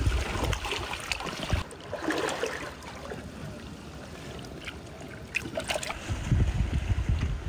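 Wind buffeting the microphone in gusts, heavy at the start and again near the end, over an even hiss of water and surf on the shore. A few light clicks sound in the quieter middle stretch.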